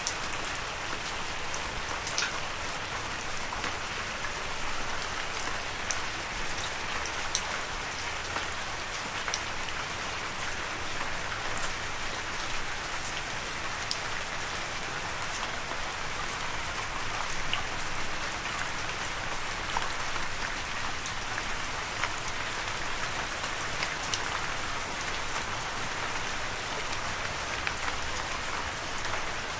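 Steady rain falling in an even hiss, with single drops ticking sharply here and there.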